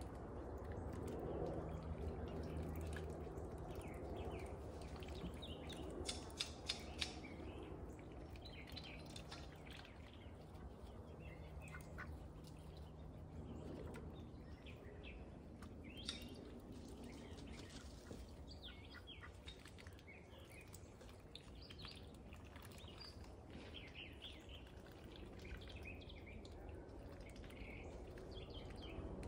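Faint, scattered bird chirps, with a quick run of a few sharp clicks about six seconds in, over a low steady hum.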